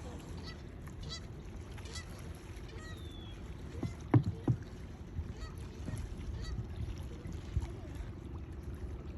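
Canada geese honking in short, repeated calls. A few low thumps come about four seconds in, over a steady low rumble.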